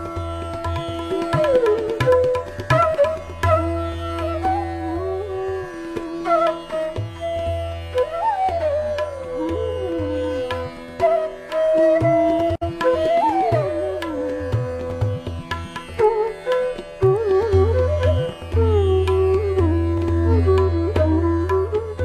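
Indian classical-style instrumental background music: a plucked-string melody with held notes and sliding pitch bends, over a steady low drone and drum strokes.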